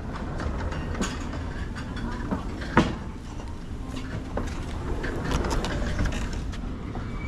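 Plastic-sleeved pages of a ring-bound menu being handled and flipped: scattered clicks and rustles, with one sharp snap about three seconds in, over a steady low rumble.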